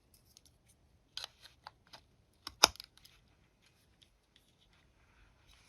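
Small clicks and taps of a USB stick miner being handled and plugged into a USB port, with one sharp click about two and a half seconds in as the plug seats. The newly fitted fan adds no audible whir.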